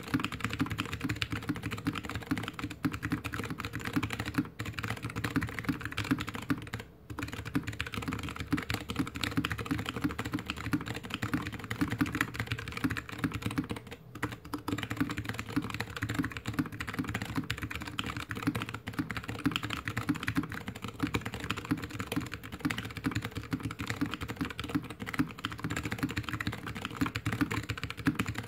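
Fast typing on a GK61X mechanical keyboard with Kailh BOX Mute Jade clicky switches, a stainless steel plate in a plastic case and DSA keycaps, resting on a bare desk: a dense, continuous run of key clicks with a brief pause about seven seconds in.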